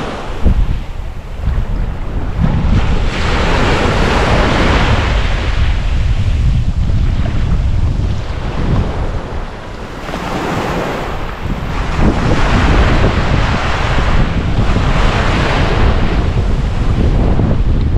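Ocean waves breaking and washing ashore, coming in surges every few seconds, with wind buffeting the microphone as a steady low rumble underneath.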